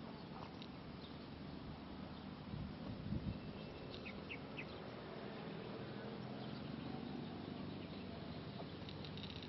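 Outdoor field ambience: a steady background hiss with a few dull low thumps about three seconds in and a few short bird chirps about four seconds in.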